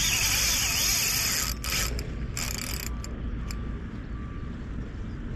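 Spinning reel's drag buzzing as a hooked fish pulls line off: one continuous run of about a second and a half, then two short bursts.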